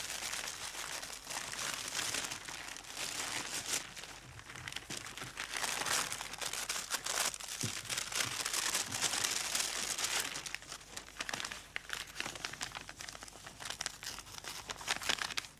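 Paper gift wrapping crinkling and rustling as presents are unwrapped and handled, in dense irregular bursts.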